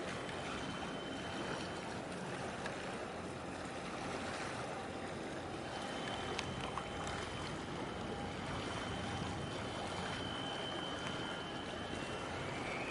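Waterfront ambience at a harbour mouth: a steady wash of water and wind with a faint low hum underneath, while a large container ship passes close by.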